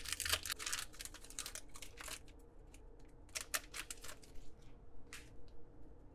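Foil wrapper of an Upper Deck Series 1 hockey card pack being torn open and crinkled: a dense run of tearing and crackling for about two seconds, then a few shorter crinkles as the wrapper is peeled off the cards.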